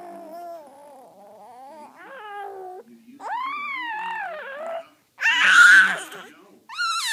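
Baby vocalizing in long drawn-out vowel sounds that rise and fall in pitch, with a loud, high squeal about five seconds in and another starting near the end.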